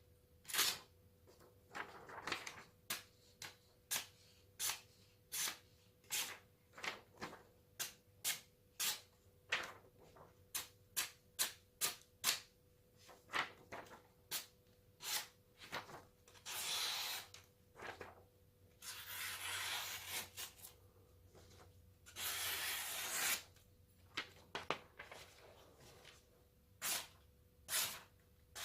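Freshly sharpened knife blade slicing through paper: a long run of short, crisp cuts about twice a second, with three longer rustling slices around the middle.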